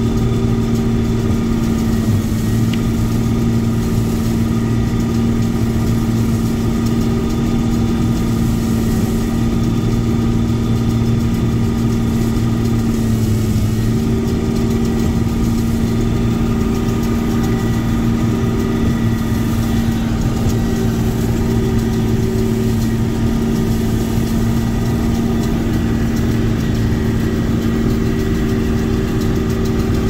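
Combine harvester running steadily under load, a constant low mechanical drone with a steady hum.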